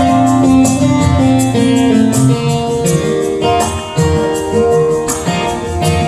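Live band playing an instrumental passage of a worship song between sung lines: guitar and drums with a steady beat and tambourine.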